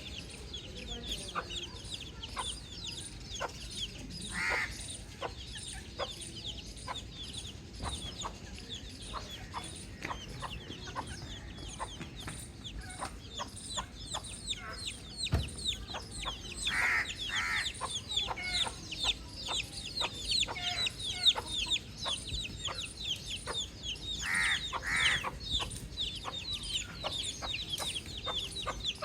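Baby chicks peeping continuously, many short high chirps that fall in pitch, growing busier about halfway through. A few louder, lower calls come in pairs among them.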